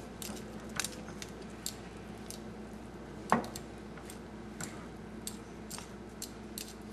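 Wooden spoon stirring kasha with bow-tie pasta in a skillet: a run of short clicks and scrapes, with one louder knock about three seconds in. A steady low hum runs underneath.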